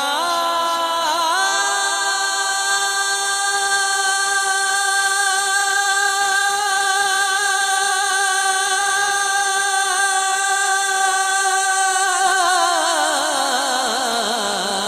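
A man's unaccompanied devotional singing (naat recitation), holding one long high note for about ten seconds, then breaking into a wavering run that slides down near the end.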